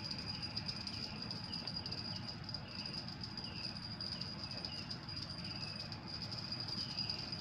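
Insects trilling in one steady high note, with short falling chirps repeating about twice a second.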